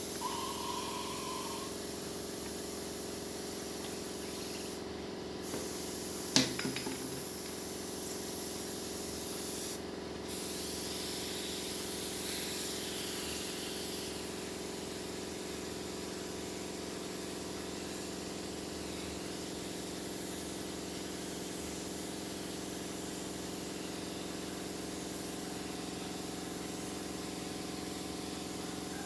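Spray gun hissing as finish is sprayed onto a drum body, over a steady motor hum; the spray stops briefly twice, and there is one sharp knock about six seconds in.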